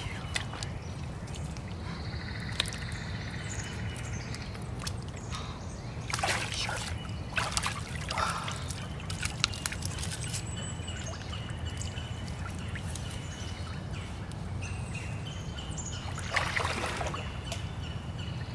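Shallow swamp water splashing and sloshing three times, with birds singing and a steady low rumble underneath.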